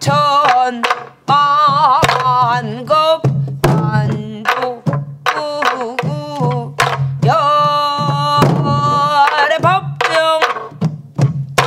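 A woman singing a Korean southern folk song (namdo-chang) with heavy, wavering vibrato. She accompanies herself on a sori-buk barrel drum, with stick and palm strokes knocking out the rhythmic cycle under the voice.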